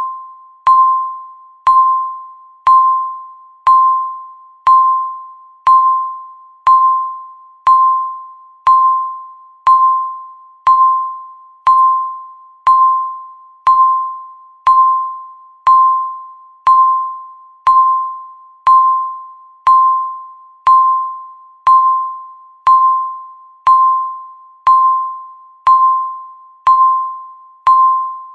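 Countdown timer beeping once a second: a short electronic tone of about 1 kHz with a sharp start that fades quickly, repeated evenly, one beep for each second ticked off.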